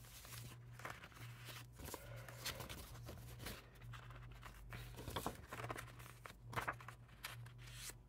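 Faint rustling and light taps of paper planner inserts being handled and turned, over a steady low hum.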